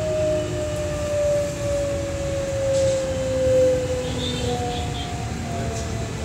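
JR West 207 series 1000-subseries electric train's traction motors and inverter whining in a tone that slowly falls in pitch as the train slows for a station stop, over the low rumble of wheels on rail. A couple of brief high squeaks come about four seconds in.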